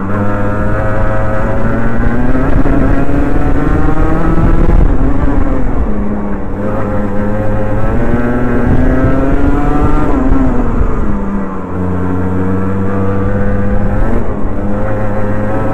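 Rotax Mini Max 125cc two-stroke single-cylinder kart engine, heard from on board, revving up as the kart accelerates out of corners and dropping as it lifts and brakes, over and over. Its pitch falls deepest about eleven seconds in, then climbs again near the end.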